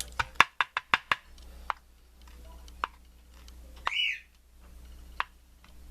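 A quick run of small sharp clicks in the first second, then a few scattered clicks: tiny pin-tumbler springs and pins being shaken out of a padlock core and landing on a hard surface. About four seconds in, a parakeet gives one short chirp.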